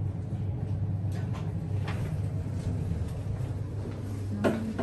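Passenger elevator running down with a steady low hum as it reaches the lobby, its doors sliding open, with a few faint clicks and one brief sharp sound near the end.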